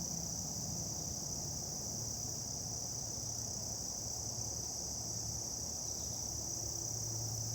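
Steady, high-pitched insect chorus over a low hum of distant road traffic.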